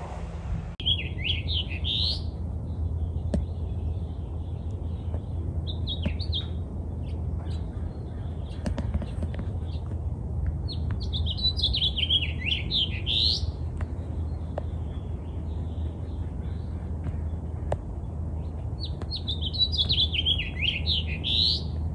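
A songbird singing fast, jumbled warbling phrases of one to two seconds, four times, over a steady low hum.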